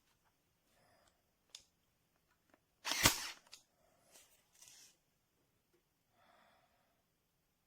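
Cordless electric staple gun / brad nailer firing once, a single sharp snap about three seconds in. A few faint clicks come before it and some soft rustles after.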